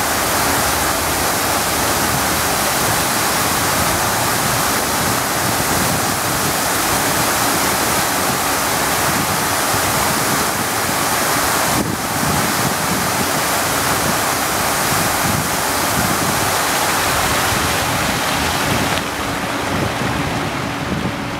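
Water of a large multi-jet fountain rushing and splashing down into its pool, a loud steady spray noise. It eases off about nineteen seconds in as the tall jets drop to small low arcs.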